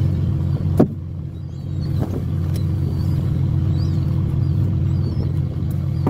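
Fishing boat's engine running with a steady low drone, with a sharp knock about a second in and gulls calling faintly.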